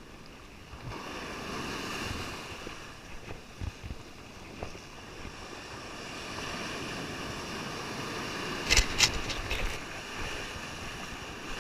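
Surf breaking on the beach with wind buffeting the microphone, and a few sharp knocks near the end.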